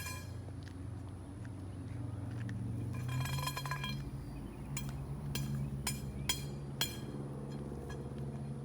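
Hard objects clinking with a bright ring as scattered items are gathered up: a short cluster of clinks about three seconds in, then about five sharp separate clinks in the second half, over a steady low hum.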